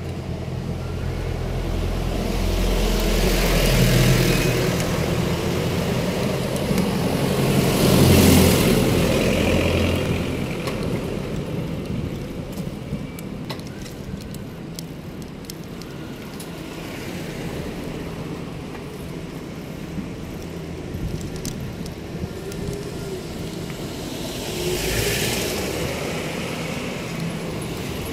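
City road traffic, with several vehicles passing close by one after another; the loudest passes come about 4 and 8 seconds in and again near the end.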